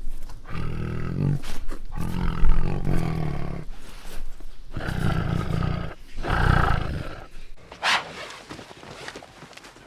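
A large animal giving a series of low, drawn-out roaring calls, about a second each, with a short high-pitched call near the end.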